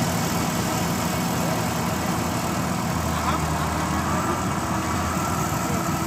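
Yanmar AG600A rice combine harvester running steadily as it cuts through the paddy, its diesel engine giving an even, unchanging note.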